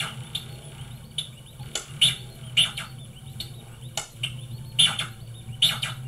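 DIY synthesizer making short, irregular bird-like chirps and blips, about two a second, over a steady low drone.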